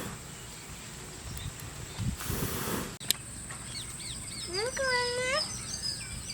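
A chicken calls once about two thirds of the way in, a rising then held note lasting about a second, while small birds chirp quickly and repeatedly around it.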